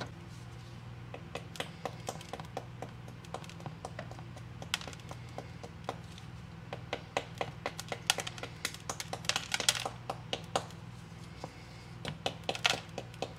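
Irregular clicking and tapping of a metal tool chipping and knocking crusted rust scale off a corroded antique cap gun, the taps coming thicker and louder in the second half, over a steady low hum.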